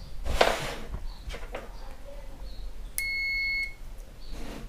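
A DT9205A digital multimeter's continuity buzzer gives one steady high beep of well under a second, about three seconds in, signalling a near-zero-ohm contact between its probes. A short rustle of handling comes about half a second in.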